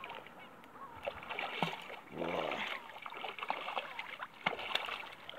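Hooked sea trout thrashing at the surface in shallow water while being played on the line, a run of irregular splashes.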